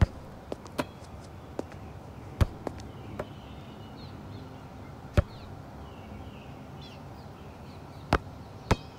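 A football thudding as it is struck, about ten sharp hits at uneven intervals: several close together in the first three seconds, then single hits about five and eight seconds in.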